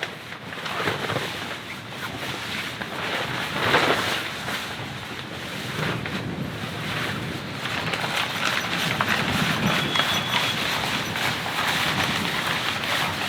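Heavy rain: a dense steady hiss of countless drops, swelling briefly about four seconds in and growing louder toward the end.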